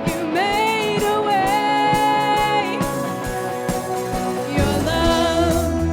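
Live worship music: a voice sings long held notes over a sustained band backing, and a deep bass comes in near the end.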